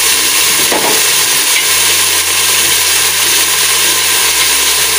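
Chopped onion frying in hot oil in a pot, a steady sizzle.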